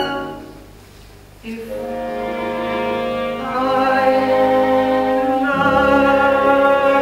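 Orchestral accompaniment from a stage musical's score, playing held chords. A sustained sound fades out in the first second, then new chords enter about a second and a half in and build, with a low bass note joining past the five-second mark.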